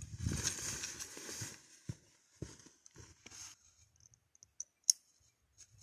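A heavy rucksack is swung up onto the back, with fabric rustling and the pack thudding into place over the first second and a half. A few small knocks follow while the straps are adjusted, then a single sharp click about five seconds in.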